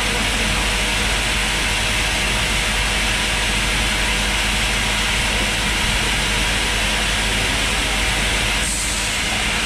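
Processing-plant machinery running: a steady mechanical noise with a hiss and a low hum from pumps and motors on the stainless processing equipment.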